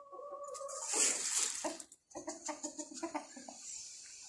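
Chickens clucking in a coop, a quick run of short clucks in the second half, with a burst of rustling noise about a second in.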